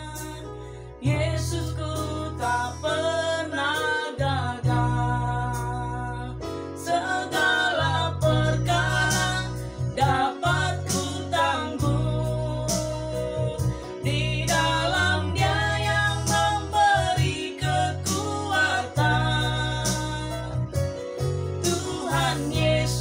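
A woman singing an Indonesian worship song to a Yamaha arranger keyboard accompaniment with a bass line and a steady beat. A held chord fades out at the start, and the accompaniment comes back in about a second in.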